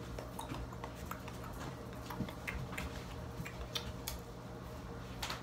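Scattered light clicks and taps, irregular and more frequent in the second half, with the loudest near the end, over a steady low hum.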